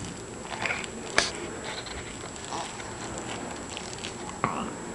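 A five-month-old baby's small mouth and throat noises: a few short wet smacks and gurgles, with a sharp click about a second in and a brief louder sound near the end.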